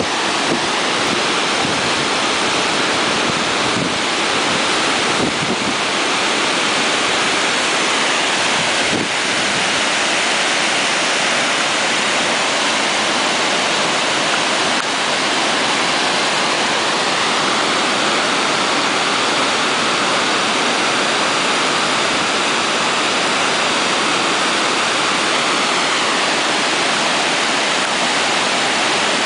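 Water pouring over the spillway crest of a concrete gravity dam during a release and falling into the pool below: a loud, steady rush.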